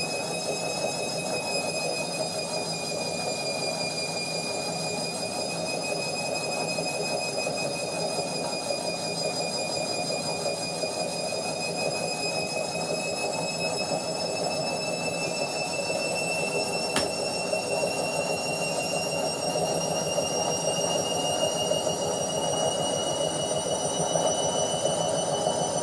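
Washing machine on its spin cycle: a steady high-pitched whine that slowly rises in pitch, over a dense rushing hum. A single click about two-thirds of the way through.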